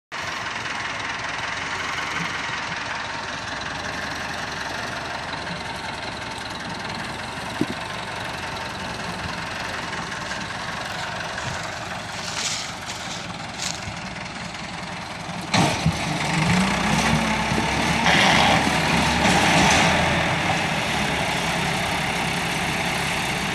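Tractor diesel engines running steadily, one of them a Massey Ferguson 385. About two-thirds of the way in, an engine revs up hard with a rising pitch and stays loud as the tractors pull against each other.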